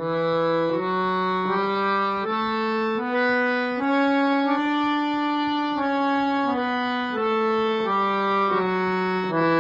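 A three-reed scale-changer harmonium, hand-pumped, played one held note at a time. The notes step up a scale, each lasting a little under a second, and then step back down.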